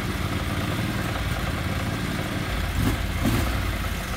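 Eight-wheeled amphibious ATV engine idling steadily, with a brief louder swell about three seconds in.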